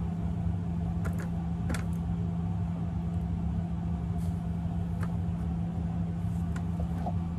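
A steady low hum, like a small motor or appliance running, with a few light clicks.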